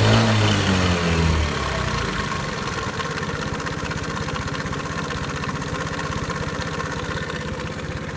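Suzuki Let's 4 scooter's small single-cylinder four-stroke engine, held at raised revs that drop back to idle about a second and a half in, then idling with a fast, even pulse. The engine is one sold as defective for an abnormal engine noise.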